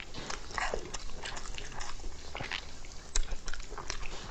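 Close-miked chewing and mouth sounds from eating: wet smacks and clicks at irregular intervals, with a short downward-sliding slurp about half a second in.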